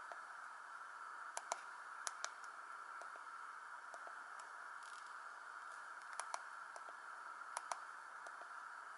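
Faint clicks of a Samsung GT-E1050 mobile phone's keypad buttons being pressed, mostly in quick pairs, a few seconds apart, over a steady faint hiss.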